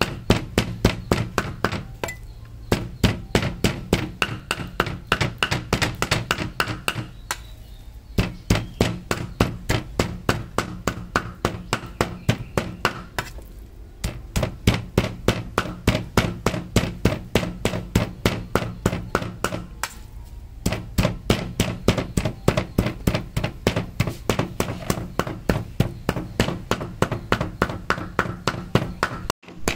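Cleaver chopping fast on a chopping board, about five strokes a second in long runs broken by brief pauses.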